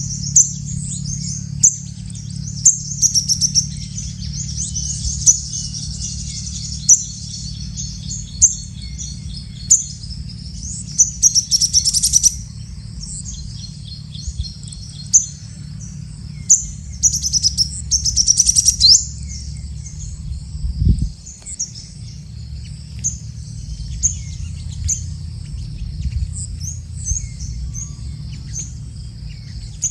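Sunbirds calling: a steady stream of short, high, sharp chirps, with two bursts of rapid high trilling partway through. A steady low rumble runs underneath, with a single low thud about two-thirds of the way in.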